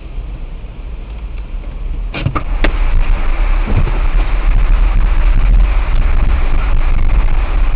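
Low traffic rumble in a road tunnel, picked up from inside a car by a dashcam. It swells louder about two to three seconds in, with a few sharp clicks around the same time.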